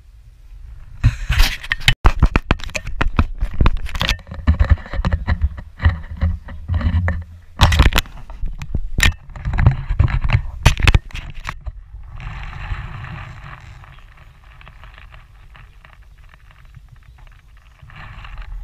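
Handling noise on an action camera's microphone as the camera is jostled about: dense scraping and rubbing with many sharp knocks, starting about a second in. About twelve seconds in it gives way to a steadier, quieter hiss.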